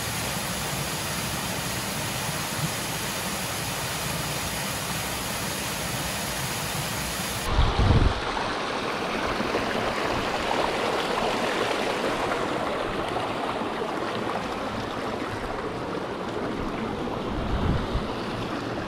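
Mountain waterfall rushing down a rocky gully, a steady roar of water. About seven seconds in it changes abruptly to a shallow stream running over rocks close by, with a brief low bump at the change and a few more near the end.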